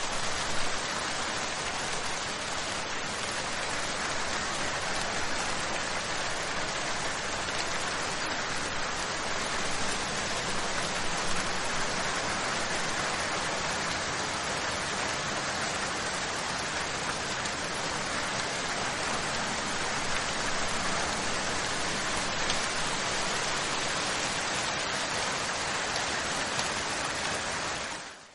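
Steady, even hiss of noise, like static, with no clear source.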